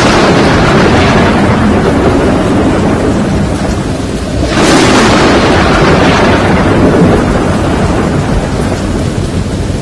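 Thunderstorm with steady heavy rain and two loud claps of thunder, one at the start and one about halfway through, each dying away slowly.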